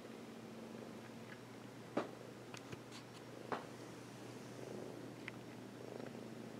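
Maine Coon cat purring steadily, a soft continuous rumble close to the microphone. Two sharp clicks stand out, about two seconds in and again a second and a half later.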